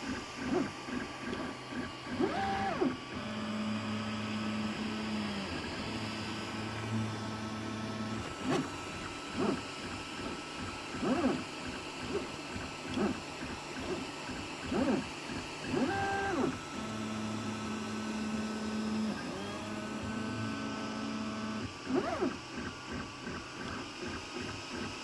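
FDM 3D printer running a print, its stepper motors whining at changing pitches as the print head moves. Long steady tones during long straight moves are broken by short, quick rising-and-falling sweeps every second or two.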